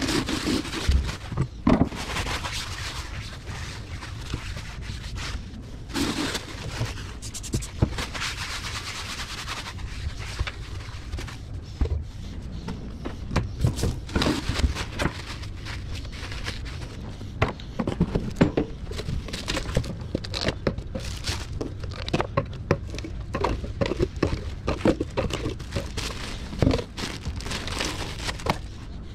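Gloved hands handling kitchen prep gear at a steel sink and counter: scattered knocks and clicks of knives and utensils being set down, scraping, and the crinkle of paper towels and thin plastic cups, over a steady low room hum.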